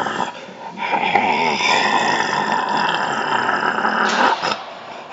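Guttural zombie-style growl: one long, rough growl starting about a second in and lasting about three seconds.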